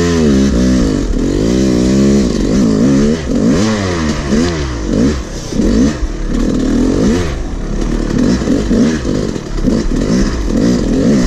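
Yamaha dirt bike engine revving up and down over and over as it climbs a steep, rough trail, the pitch rising and falling every second or so.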